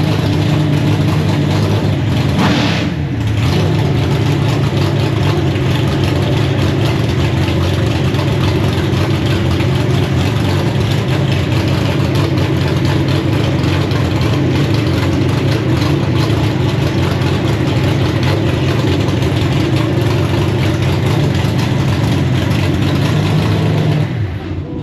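Drag-racing car's engine idling steadily and loudly, with a brief rev about two and a half seconds in.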